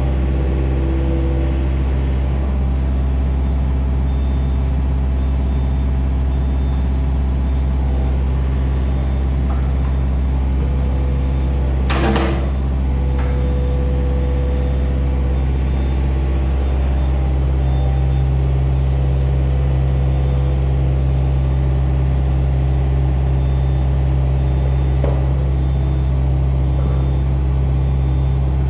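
Steady low mechanical hum of running machinery, with one sharp metallic clank about twelve seconds in.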